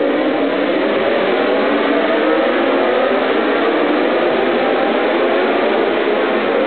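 A pack of MotoGP racing motorcycles running together, many engine notes overlapping and sliding up and down in pitch.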